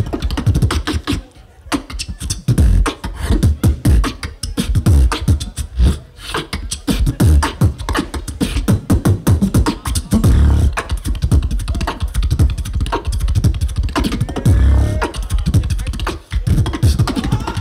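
Solo beatboxing, amplified through a handheld microphone and PA: a fast rhythm of deep kick-drum booms and sharp snare and hi-hat clicks, with a short break about a second and a half in.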